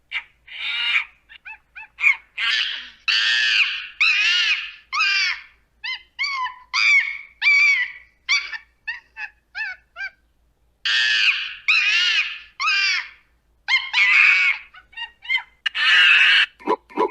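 Monkey screaming: a run of high-pitched calls, some short and some held for about a second, bending up and down in pitch, with a pause of about a second a little past the middle.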